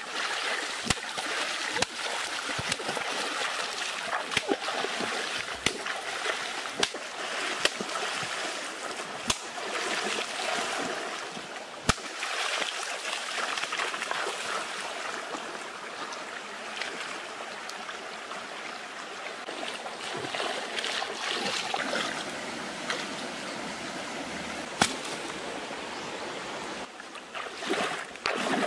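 Bare feet splashing and wading through a shallow rocky stream, over the steady rush of the running water, with sharp clicks now and then.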